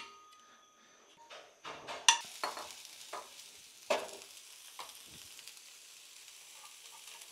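Soaked soya chunks sizzling in a hot frying pan on a gas stove. The sizzle starts about two seconds in and runs steadily. Several clinks and knocks of utensils against the pan and bowl come in the first few seconds.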